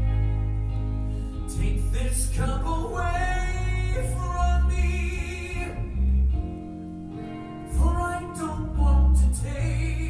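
A male lead singer sings a slow rock-musical ballad over guitar and a deep, sustained bass accompaniment.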